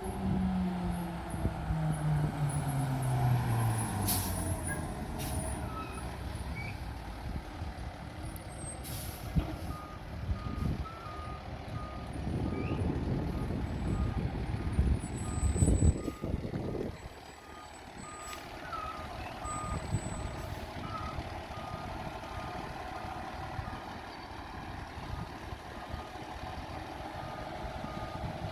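Fire truck backing up: its backup alarm beeps steadily at one pitch from about ten seconds in, over the running engine. The engine note falls at the start, with sharp air-brake hisses around four and nine seconds in, and the engine runs louder for a few seconds midway.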